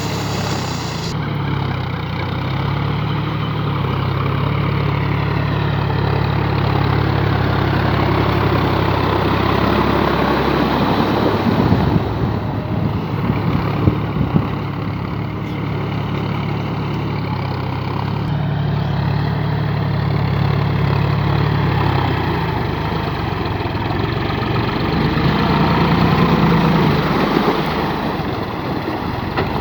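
John Deere tractor's diesel engine running under load while ploughing, its note strong at times and fading at others as it works the field, with a few clanks about halfway through.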